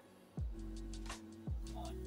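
Background music with a beat: held chords over deep kick drums and light hi-hat ticks, coming back in about half a second in after a short quiet gap.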